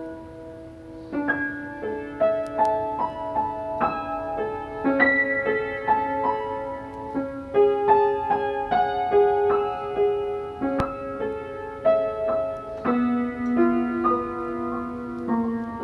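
Piano music: a slow melody over held chords, with the notes changing every second or so.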